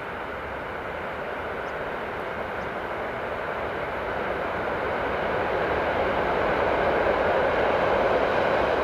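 An approaching electric freight train, hauled by two electric locomotives, gives a steady rushing noise that grows gradually louder as it nears across a railway bridge.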